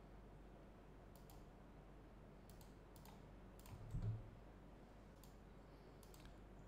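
Faint, scattered clicks of a computer mouse, several spread across the stretch, with one louder dull low thump about four seconds in.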